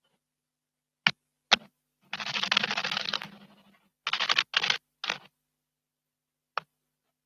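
A small bird bathing in a stone water basin: two sharp clicks, then a splashing burst of about a second that trails off, three shorter splashes in quick succession, and a last click near the end.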